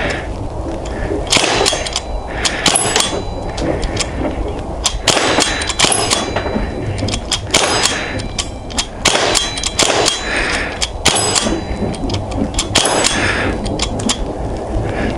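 Sig Sauer MPX .177 semi-automatic pellet pistol, running on high-pressure air from a bulk-fill tank, fired in an uneven string of shots, roughly one a second. Some of the pellets strike a steel resetting target with a sharp metallic ring.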